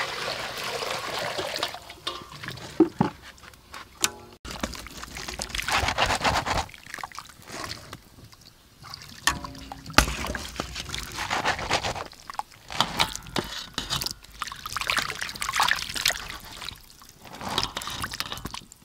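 Water pouring and splashing into a steel basin in several spells as boiled chicken feet are lifted from a wok with a wire strainer and tipped into the water, with a few sharp knocks.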